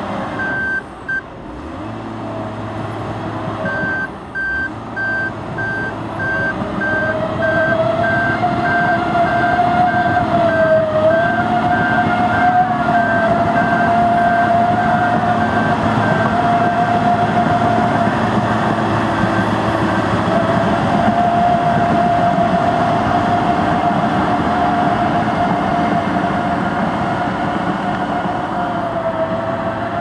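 Case 1650M LGP crawler bulldozer running under load as it drives on its tracks, its engine and drive giving a steady whine that wavers slightly in pitch. A reversing alarm beeps steadily through roughly the first half and stops about midway.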